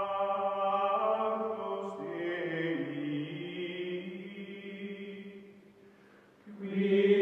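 Outro music: sustained choir-like chant of long held chords. The chord shifts lower about two seconds in, fades almost away near six seconds, then swells back louder.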